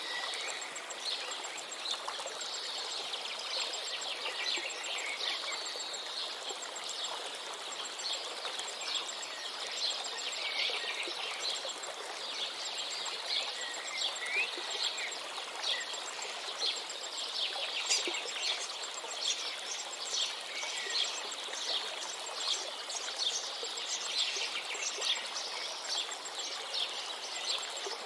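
A river running steadily, with many small birds chirping and trilling over it. A faint rapid ticking repeats high above, like an insect.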